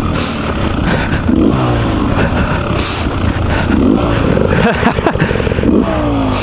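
Beta 300 two-stroke dirt bike engine revving up and falling back several times while riding through slick mud.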